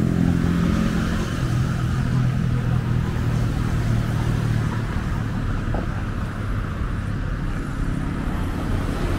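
Road traffic: vehicle engines running as a steady low rumble.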